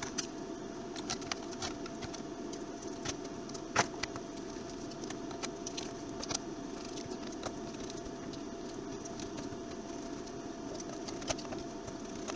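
Light clicks and taps of a screwdriver and small screws against the plastic base of a Dyson Hot+Cool fan as it is screwed back together, with one sharper knock about four seconds in, over a steady background hum.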